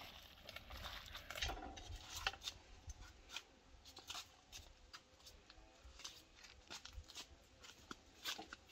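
Faint, irregular small clicks and soft squelches at the start, from hands kneading raw minced meat in a plastic bowl.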